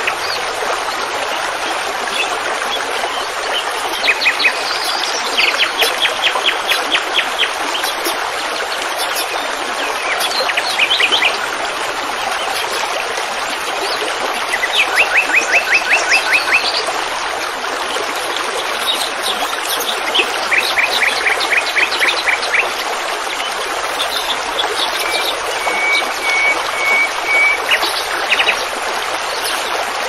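Songbirds singing in repeated fast trills, with a short run of even notes near the end, over a steady rush of running water.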